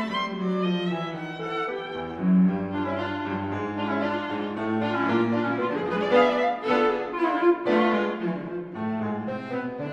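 Instrumental accompaniment score for a silent film, with bowed strings and a violin most prominent, playing a continuous melody.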